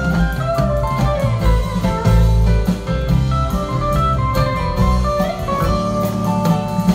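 Live rock band playing an instrumental passage: electric guitars playing melodic lines over bass guitar and drum kit.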